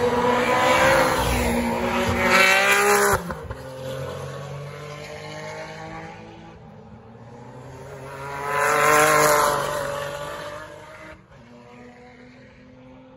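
Historic 1970s–80s touring cars racing past at full throttle. A loud engine note cuts off suddenly about three seconds in, then a second car rises to a peak about nine seconds in and fades away, leaving a quieter engine drone.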